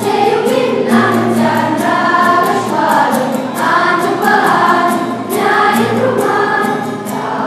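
Children's choir singing a song together in Romanian, over an accompaniment with a steady beat.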